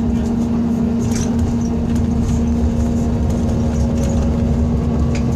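Scania K340 coach's five-cylinder diesel and driveline running steadily at cruise, heard inside the passenger cabin: a constant hum over a low road rumble, with a few faint rattles.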